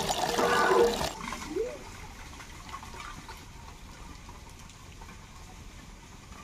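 Water from a hand pump gushing and splashing into an aluminium pot, with a squeaky tone recurring about once a second, which fits the pump's strokes. It cuts off about a second in, leaving faint outdoor background with one short rising squeak.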